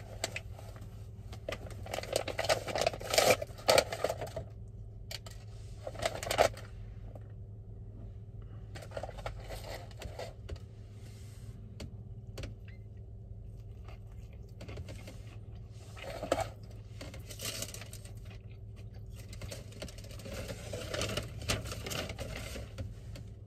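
Paper sandwich wrapper rustling and crinkling as a crispy fried chicken sandwich is handled, strongest in the first few seconds, then scattered bites and crunchy chewing in short bursts, over a steady low hum.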